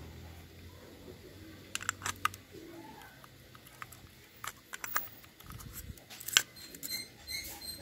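Scattered clicks and light knocks of hand work on motorcycle carburetor and intake parts, the loudest knock about six seconds in. Near the end comes a quick run of high-pitched squeaks.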